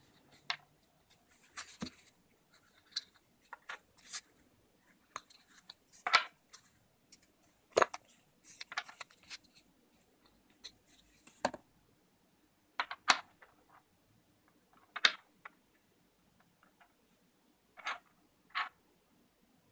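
Thermaltake metal keycaps being worked out of a foam insert and set down on a wooden desk. Scattered sharp clicks and taps of metal on wood, with short stretches of rubbing and scraping against the foam.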